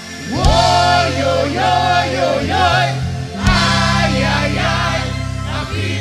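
Live soca music: a band with long held bass notes and a group of singers, coming in loud about a third of a second in after a brief lull.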